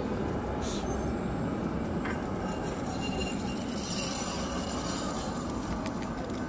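Oslo SL79 articulated tram running past and pulling away over street rails with a steady rumble. A faint high-pitched wheel sound on the curve comes about three to four seconds in, and a few light clicks come near the end.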